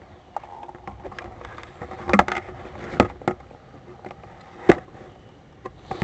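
Knocks, clicks and scrapes of a handlebar camera being handled and swung downward. The knocks are irregular, with a cluster about two seconds in and the loudest single knock near the end.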